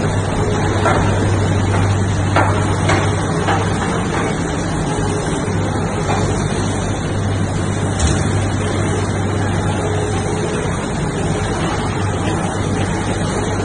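Vertical compound crusher and its feed conveyor running steadily, with a low electric-motor hum under a constant mechanical rumble. Sharp knocks come several times in the first four seconds and once more about eight seconds in.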